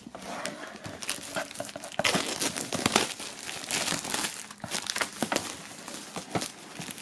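Thick plastic shrink-wrap film being pulled and peeled off a cardboard box, crinkling and crackling, most intense from about two seconds in until about five seconds in.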